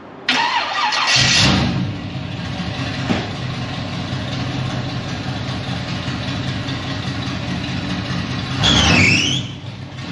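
LS-swapped 1970 Chevy Nova's LS V8 being started: a short crank, then it catches about a second in with a loud flare and settles into a steady idle. A sharp click about three seconds in, and the engine swells louder briefly about nine seconds in.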